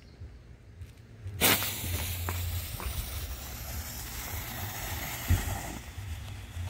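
Smoke bomb firework catching about a second and a half in, then hissing steadily as it pours out yellow smoke.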